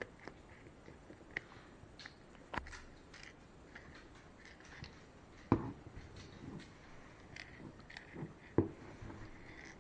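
Scattered light clicks and ticks of small hardware and tools being handled, with three sharper knocks about two and a half, five and a half and eight and a half seconds in.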